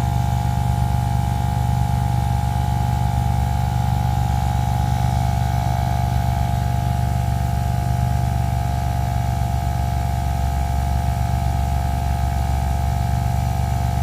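A small motor or engine running steadily at constant speed: a low, even hum with a steady higher whine above it.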